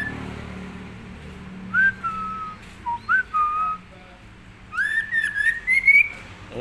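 Male murai (white-rumped shama) whistling: a few short clear notes with quick pitch glides, then a longer run of notes rising in pitch near the end.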